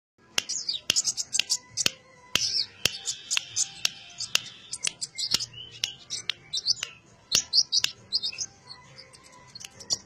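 A caged kolibri ninja sunbird twittering and chirping in rapid, high-pitched bursts, with sharp ticks about twice a second.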